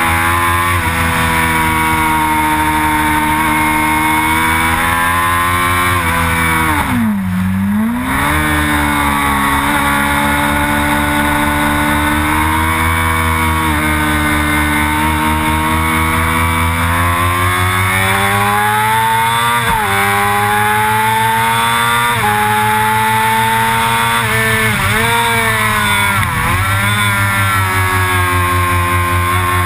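Sport motorcycle engine pulling hard on a racetrack, its pitch climbing and falling through the gears. About seven seconds in the revs drop sharply and climb again, and several brief dips come later as the gears change.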